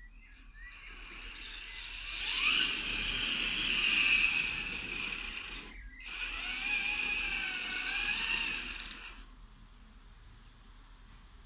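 Eight-wheeled radio-controlled truck's drive motor and gears whining as it drives, the pitch climbing over the first couple of seconds. The whine breaks off briefly about six seconds in, starts again, and stops about nine seconds in.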